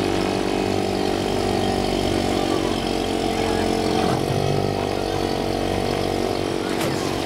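A bumper boat's small Yamaha outboard motor running steadily at close range, its pitch dipping briefly about four seconds in.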